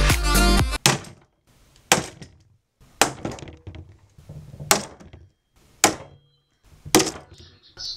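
Closed-end blind rivets being set with a hand rivet gun through an aluminium panel: five sharp snaps about a second apart as the rivet mandrels break off, with quieter handling clicks between them. Background music plays at the start and stops just under a second in.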